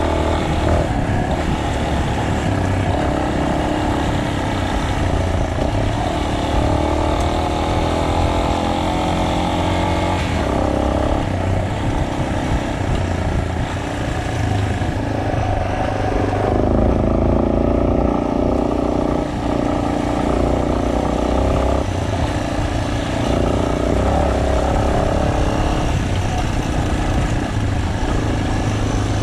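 Single-cylinder trail motorcycle running under way, with a steady engine note that drops in pitch about ten seconds in and again around sixteen seconds.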